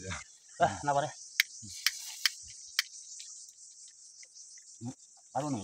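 Steady, high-pitched chorus of insects, with a few sharp clicks between about one and three seconds in.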